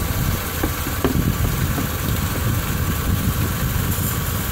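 Car engine idling steadily, its drive belt now running quiet: the belt's whistle has stopped after a spray of belt conditioner.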